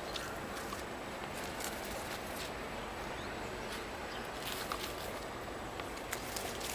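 Kitten's claws scratching and clicking on olive-tree bark among rustling leaves: scattered short, sharp scratches over a steady outdoor background hiss.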